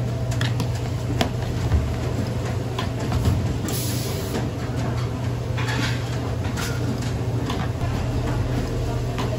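Busy kitchen at work in a breakfast shop: a steady low hum, with scattered clicks and knocks of utensils and a few short bursts of hissing.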